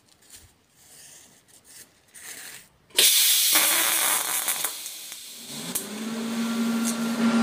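TIG welder arc tacking rolled steel exhaust cones: a sudden loud hiss starts about three seconds in and eases off after a couple of seconds. A steady hum from the welding machine comes in near the end.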